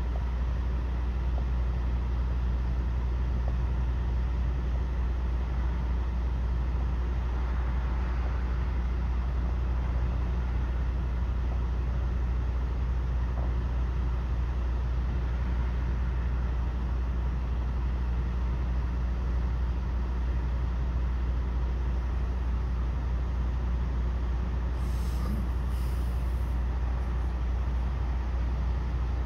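Steady low rumble of an idling diesel truck engine. Near the end come two short hisses of air, like an air brake letting off.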